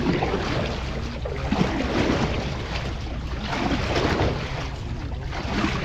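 Outrigger canoe paddles splashing in and pulling through the water in repeated strokes, with water rushing along the hull and wind buffeting the microphone.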